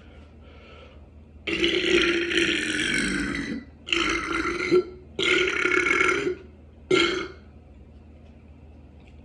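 A person belching on purpose, four burps in a row: the first lasts about two seconds, the next two are shorter, and the last is a brief one.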